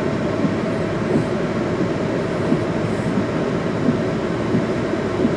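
Steady cabin noise inside a car sitting with its engine running in heavy rain, with a faint steady hum.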